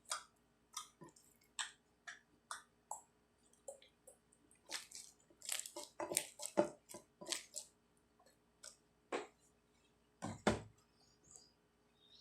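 Sticky fluffy slime squished and pulled by hand, giving irregular wet clicks and small pops, with a louder, deeper squelch about ten seconds in.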